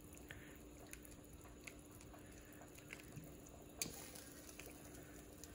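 Quiet stirring of a pot of seafood boil broth with a plastic slotted spoon: a few faint clicks and light wet sounds, one a little louder about four seconds in, over a faint steady hum.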